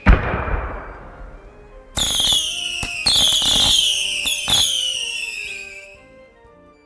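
Fireworks: a sharp boom right at the start that dies away, then about two seconds in a cluster of whistling fireworks, several high whistles slowly falling in pitch over crackles, fading out near the end.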